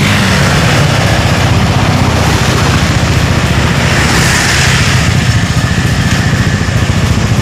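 A motorcycle engine running steadily, with an even low rumble and no rise or fall in level.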